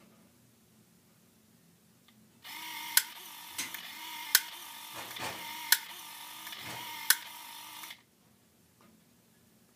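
Small motorised mechanism inside a kinetic canvas artwork whirring as it turns the square centre panel to a new image, with four sharp clicks about a second and a half apart. It starts about two and a half seconds in and cuts off suddenly near the end.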